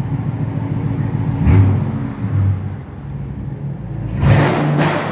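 Car engine running at idle, with brief swells about one and a half and two and a half seconds in. Two short, sharp noises follow near the end.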